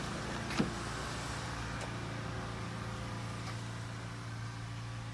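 A vehicle engine idling with a steady low hum. A short falling squeak and a faint click come about half a second in.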